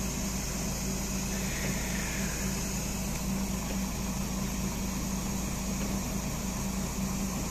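DAF 95 truck's diesel engine idling steadily.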